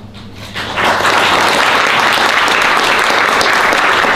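Audience applauding, many hands clapping together. It starts about half a second in, swells within a second, then holds steady.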